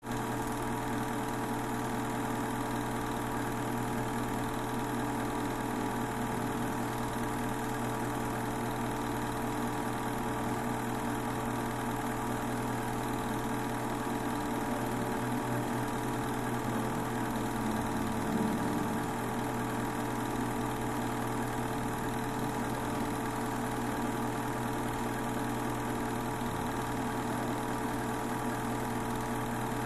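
Super 8 movie projector running: a steady, unchanging mechanical hum and clatter from its motor and film transport.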